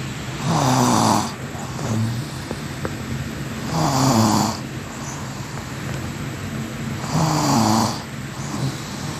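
Snoring in a steady rhythm: three loud snores about three seconds apart, over a steady hiss.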